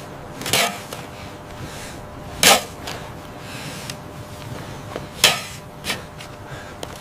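Shovels and picks striking into earth: four sharp strikes over a steady background hiss, the last two close together near the end.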